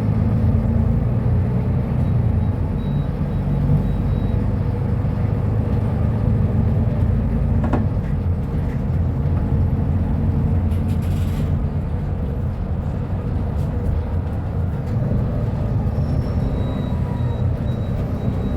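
Euro V diesel engine of a Mercedes-Benz O500U city bus running with a steady low rumble, with one sharp click about eight seconds in.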